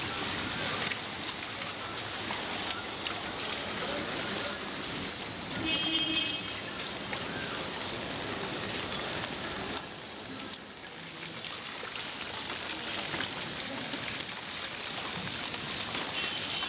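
Steady hiss of rain falling on a flooded street, with water splashing as people wade through ankle-deep floodwater. A short high tone rings out about six seconds in.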